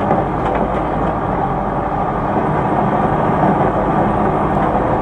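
Engine of a timber-laden logging truck running steadily as it drives.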